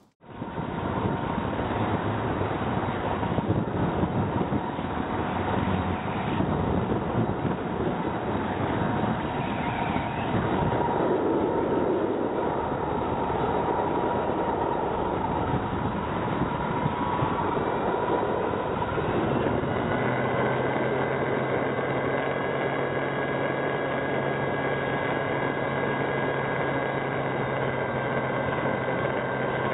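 Electric ducted fan of a Freewing L-39 model jet in flight, heard from on board: a steady rush of fan and air noise with a thin whine. About twenty seconds in it settles into a steadier hum with several clear tones.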